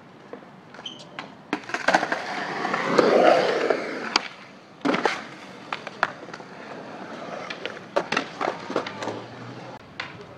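Skateboard on concrete: wheels rolling, swelling about three seconds in, with many sharp clacks and smacks of the board popping and landing on the ground.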